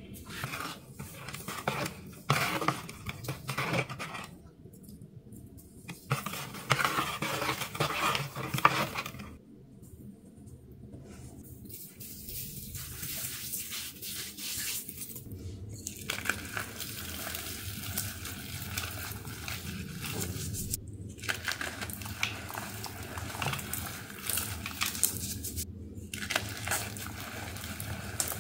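A fizzy, wet powdery block being crushed by hand, crunching in bursts for about the first ten seconds. After that comes a steady fizzing crackle with fine ticks.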